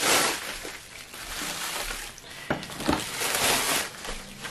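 Bubble wrap rustling and crinkling as it is pulled off a long cardboard box, in three bursts, with a couple of light knocks in between.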